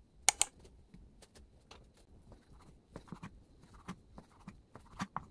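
Knife slicing a sheet of fish cake into thin strips on a wooden cutting board: irregular knocks of the blade meeting the board, with two sharp, louder clicks near the start.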